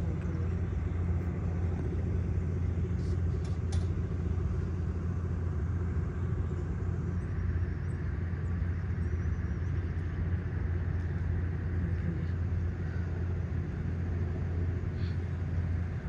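A steady low rumble of outdoor background noise, with a few faint high chirps about three to four seconds in.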